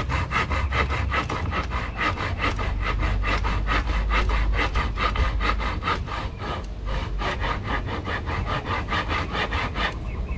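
Handsaw cutting wood in quick, even back-and-forth strokes, about five a second, with a short pause a little past the middle and stopping near the end.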